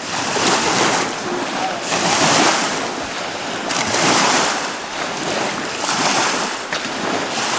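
Small waves washing onto the beach, rising and falling in surges about every two seconds, with wind buffeting the microphone.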